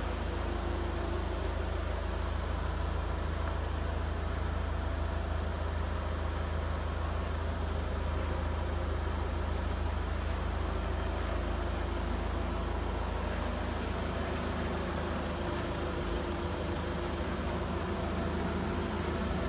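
The Vauxhall Insignia's 2.0 turbo-diesel four-cylinder engine idling steadily: an even low rumble with a hiss over it.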